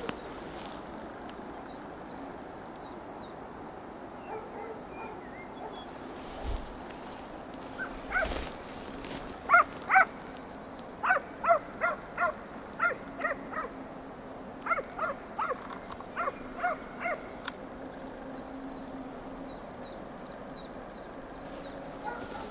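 Hunting hound barking in runs of short, sharp yelps, about twenty in all, from about eight seconds in until near the end: a scent hound giving tongue on a hare's trail.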